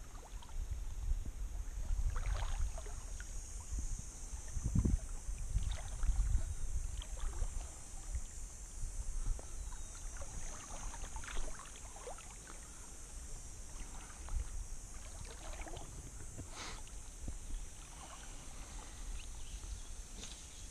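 Kayak on a calm river: small splashes, drips and water lapping against the hull come and go, with an occasional low thump and a steady high hiss.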